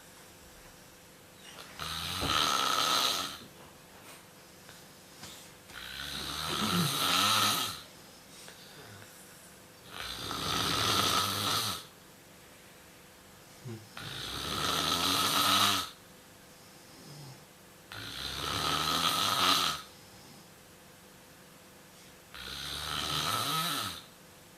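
A sleeping pet snoring: six snores, about one every four seconds, each lasting one and a half to two seconds, with quieter breaths in between.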